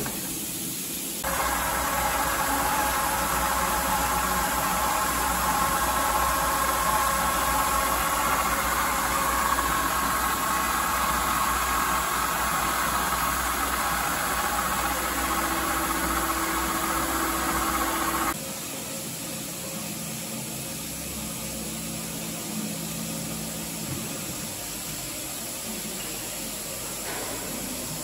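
Tacchi FTC 120 heavy-duty roll lathe's drive running with a steady whine of several tones over a low hum. It switches on about a second in and stops abruptly about 18 seconds in, leaving a quieter hum.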